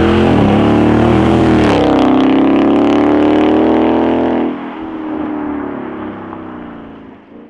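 Ford Mustang GT's V8 through an aftermarket DD Exhaust valved exhaust, accelerating hard. The pitch climbs, dips briefly twice as it shifts up, and climbs again. About four and a half seconds in it drops in loudness and fades as the car moves away.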